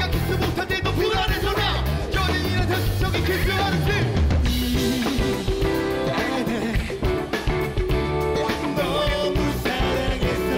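Live band playing an upbeat rock song on drum kit, bass guitar and keyboards, while a large crowd of singers sings the lyrics together in unison.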